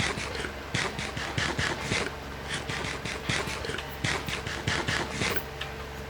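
Close-up eating sounds of spicy instant noodles being chewed: a run of short, irregular mouth clicks, several a second, that stops about five seconds in.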